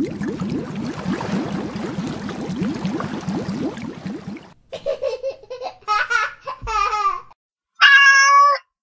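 Bubbling, gurgling water-splash sound effect with rapid short rising bubble sounds, cutting off about four and a half seconds in. It is followed by a run of short, wavering pitched cries and then one longer steady pitched call.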